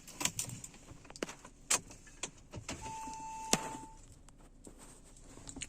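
A car key being inserted and turned in the ignition of an Audi A3, giving a string of sharp clicks, with a single steady electronic beep from the car lasting about a second about three seconds in.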